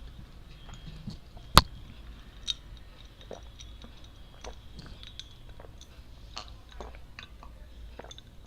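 Chewing of chocolate candy, heard as many small scattered clicks, with one loud sharp crack about one and a half seconds in and a smaller one about a second later.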